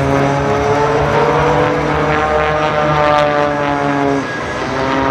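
Propeller aeroplane engine running, its pitch slowly rising and then dropping about four seconds in, where it also gets a little quieter.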